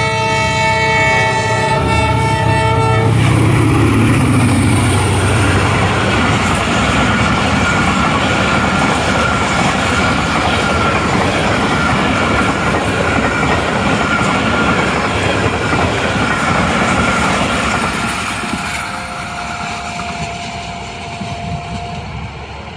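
Diesel locomotive sounding its horn, a chord of several steady tones held for about three seconds, then the express passenger train passes close by: the locomotive and a long line of coaches rolling past with rail clatter, loudest a few seconds in and fading near the end as the last coach moves away.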